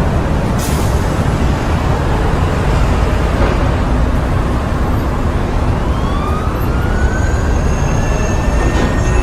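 Busy city street traffic: a steady low rumble of road vehicles. From about six seconds in, an emergency-vehicle siren rises slowly in pitch and holds high near the end.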